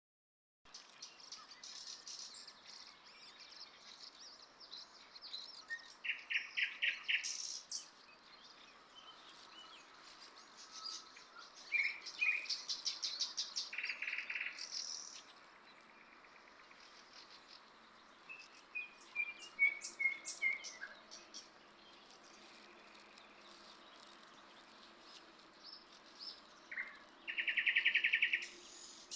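Songbirds calling: bursts of rapid trills and chirps come and go, with a short falling run of notes about two-thirds through and the loudest rapid trill near the end, over a faint steady hiss.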